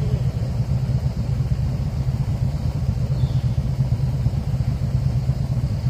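Motorcycle engine running with a steady low rumble.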